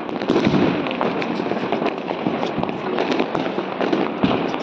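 Diwali firecrackers and fireworks crackling and popping continuously, many small sharp bangs close together.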